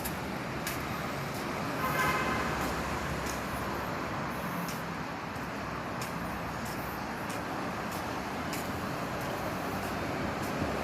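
Steady engine and machinery noise, with a short higher tone about two seconds in and scattered light clicks.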